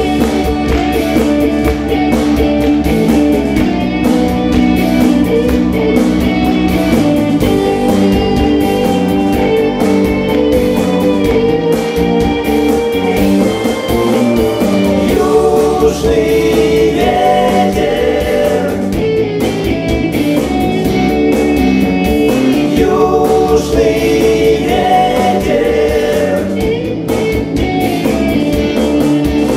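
Live band music with guitar, played at a steady, loud level.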